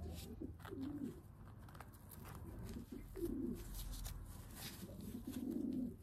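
Feral pigeon giving a few low, warbling coos, with light rustling and crinkling of self-adhesive bandage being wrapped around its body.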